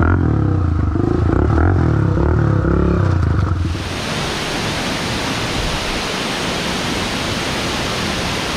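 Dirt bike engine running, its pitch shifting, for about three and a half seconds, then an abrupt change to a steady rushing noise that carries on to the end.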